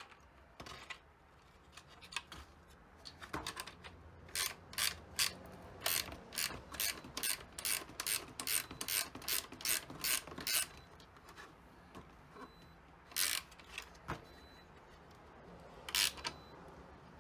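Ratcheting wrench clicking as bolts on a 3D-printed plastic jig are turned snug. A long run of clicks comes at about three a second, then two single clicks near the end.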